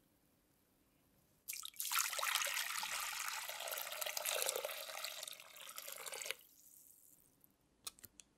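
A thin stream of water poured into a glass bowl, splashing for about five seconds and then stopping suddenly. A few light clicks follow near the end.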